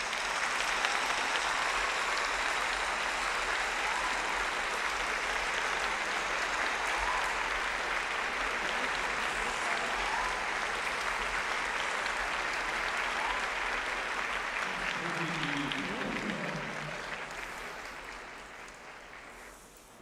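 Applause from a crowd, rising sharply at the start, holding steady and fading away over the last few seconds.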